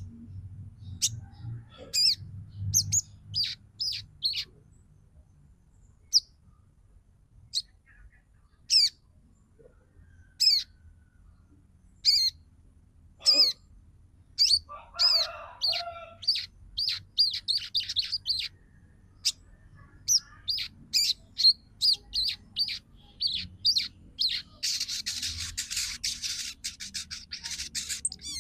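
Female crimson sunbird (sogon) giving short, sharp, high-pitched chirps. They come singly and spaced out at first, then turn into a fast chattering run from about halfway through. A brief hissing noise sounds near the end.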